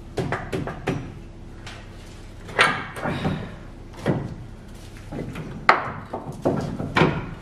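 Audi A3 front driveshaft being worked out of the wheel hub by hand: irregular metal knocks and clunks as the CV joint and shaft bang against the hub and suspension parts, with the loudest knocks about two and a half and five and a half seconds in.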